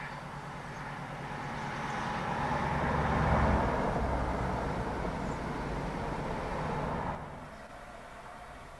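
A High Speed Train's Class 43 diesel power cars and the wheels on the rails as the test train passes close by. The engine note and rumble build to their loudest about three and a half seconds in, then drop sharply about seven seconds in.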